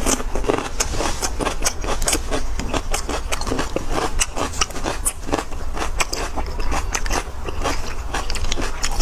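Wet mouth sounds of eating braised beef bone marrow: sucking and slurping the soft, oily marrow and chewing it with lip smacks, a rapid run of small wet clicks several times a second.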